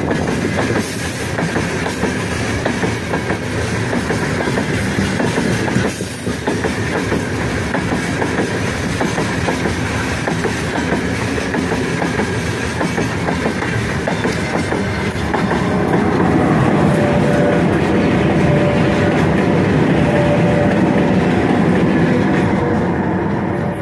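Freight train of open gondola wagons rolling past at speed close by, wheels clacking over the rails. About 15 seconds in, the 4ES5K "Ermak" electric pusher locomotive at the rear draws level, louder and with a steady hum over the rolling noise.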